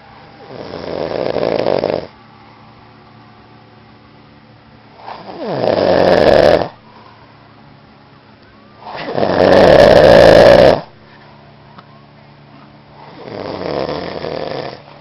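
A man snoring loudly: four long, rasping snores on the in-breath, about four seconds apart. Each swells and then stops abruptly, and the middle two are the loudest.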